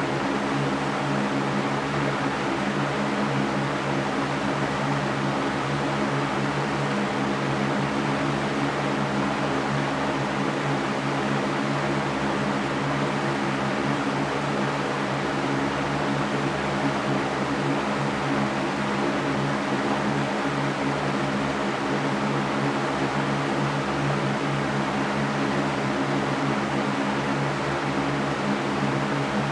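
Electric fan running steadily: an even whooshing air noise over a low hum from the motor, with no change in speed.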